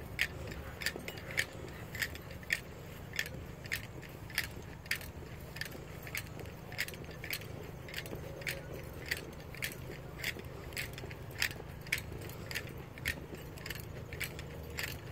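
Walking footsteps, each carrying a light click or jingle, about two a second over a steady low rumble.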